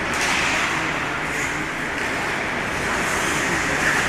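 Steady hiss of hockey skates carving and scraping the ice during live play, over general ice-rink noise.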